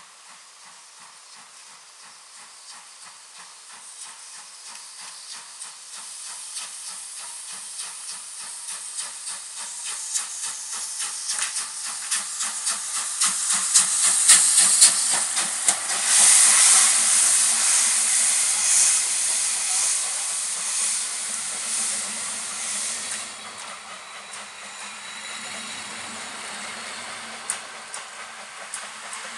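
Steam locomotive pulling a train away: rhythmic exhaust chuffs grow louder as it approaches. A loud steam hiss follows as the engine passes, about halfway through, then the carriages roll past more quietly with occasional clicks.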